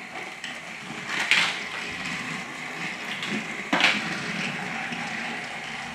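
Battery-powered Thomas TrackMaster toy engine running along plastic track, a steady whirring rattle, with two sharper clacks at about one second and about four seconds in.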